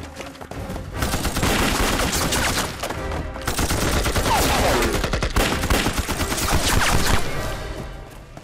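Heavy gunfire: a dense fusillade of many shots close together, starting about a second in and easing off near the end.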